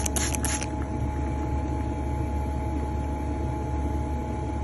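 Harvest Right pharmaceutical freeze dryer under vacuum, its vacuum pump and machinery running with a steady low hum, two steady tones and a hiss. A rapid pulsing hiss sounds for under a second at the start and then stops.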